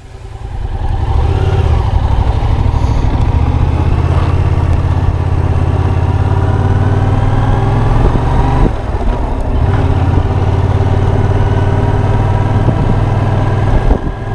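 Yamaha FZ-07 motorcycle's parallel-twin engine running under way, fading in over the first second. About two-thirds of the way through the engine sound dips briefly, then the revs climb steadily.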